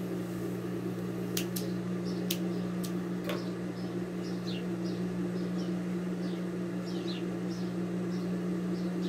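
Steady hum of an industrial sewing machine's motor running while the needle is idle, with two sharp clicks early on. Small birds chirp over it, short high falling calls about two a second from a third of the way in.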